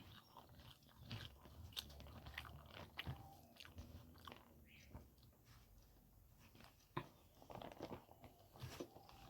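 Close-miked mouth sounds of a person chewing spicy pork curry with white rice: faint, irregular wet clicks and smacks, busier about two-thirds of the way in.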